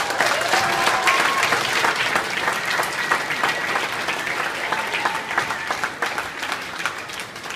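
Audience applauding at the end of a speech, loudest at the start and slowly fading.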